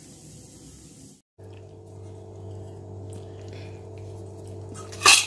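Low steady background hum, cut off briefly about a second in. Near the end a sharp clink of a steel spoon against a steel plate of fried okra.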